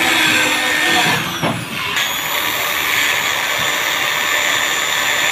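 Electric hand drill running steadily, a wire brush in its chuck scouring the valve seats of a small air-cooled cylinder head. About a second and a half in it winds down, then starts again sharply at two seconds and runs steadily, spinning an engine valve clamped in its chuck while the valve is cleaned.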